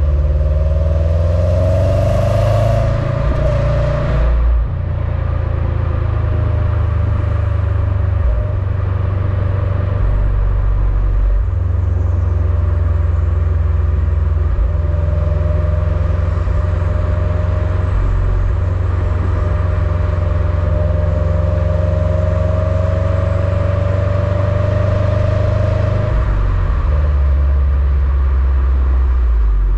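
Stock exhaust of a 2021 Subaru WRX STI's 2.5-litre turbocharged boxer four, heard right at the quad tailpipes with the car under way: a steady low rumble. A hiss over the first few seconds drops away about four seconds in.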